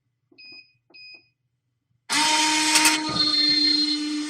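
Two short electronic beeps from the vending machine's selection keypad. About two seconds in, the vend motor starts turning the product spiral with a loud, steady whir, and a sharp click comes about a second after it starts.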